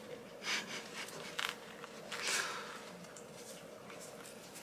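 Soft rustling and brushing of fabric and fur, a few short scuffs, as a dog sun hat is adjusted by hand on a small dog's head, over a faint steady hum.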